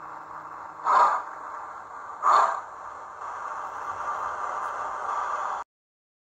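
Sound-fitted model of Bulleid Pacific locomotive 35004 running slowly, its DCC sound decoder playing steam exhaust chuffs through a small speaker: two loud chuffs about a second and a half apart over a steady hiss. The sound cuts off suddenly near the end.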